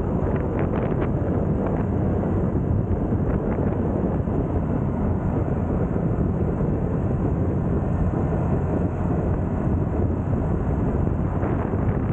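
Steady wind buffeting the microphone of a camera on a moving motor scooter, over the low rumble of the scooter and its tyres on the road.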